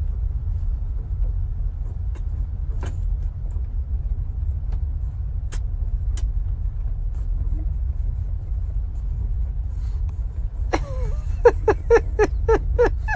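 A steady low rumble, with a few sharp clicks scattered through it. Near the end, a quick run of short pitched animal calls, about five a second.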